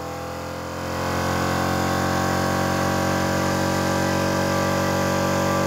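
Chicago Air Hush series four-piston, 2 hp inverter compressor pumping up its 15-litre tank. The motor speeds up about a second in and then runs steadily, a cut-in caused by the set pressure being raised above the tank pressure.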